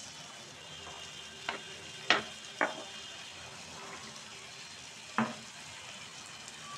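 Butter sizzling steadily in a non-stick frying pan as cabbage-leaf momo parcels are set into it, with four sharp taps between about one and a half and five seconds in, the loudest about two seconds in.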